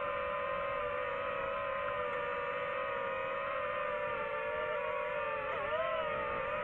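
DJI FPV drone's motors and propellers whining steadily in flight, with a brief dip and rise in pitch about five and a half seconds in as the throttle changes.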